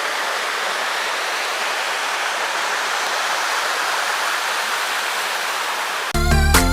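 Small waterfall running down a hillside: a steady rush of falling, splashing water. Music cuts in abruptly near the end.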